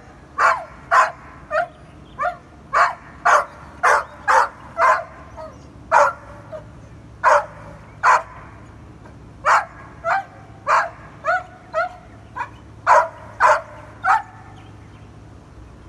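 A dog barking repeatedly: about twenty short barks, singly or in quick runs of two or three, with pauses of up to a second and a half between them, over a faint steady low hum.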